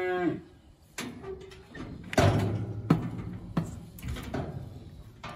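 Knocks and clanks of a metal cattle chute as the calf shifts against it: half a dozen sharp bangs, the loudest about two seconds in. The tail of the calf's moo cuts off at the very start.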